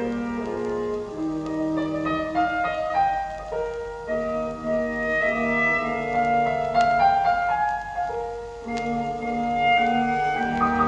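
Instrumental music with long held melody notes, played back through Dynaco A-35 loudspeakers for a listening test after their degraded crossover network parts were replaced.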